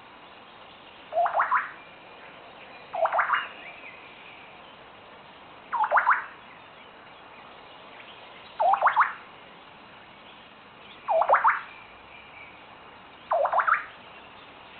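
European honey buzzard calling: six short calls, each a quick run of three or four notes sweeping upward, repeated every two to three seconds.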